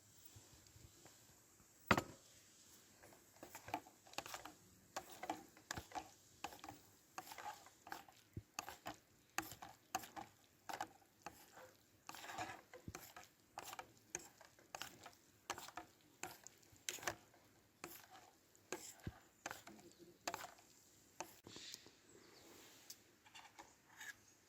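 Irregular small knocks, clicks and scrapes of objects being handled, with one sharper knock about two seconds in.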